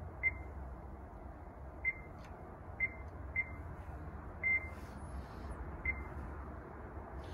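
Icom ID-5100 transceiver sounding its short, high key-press beeps as its touchscreen keys are tapped, six times at irregular intervals. Each beep confirms a key press while a call sign is entered.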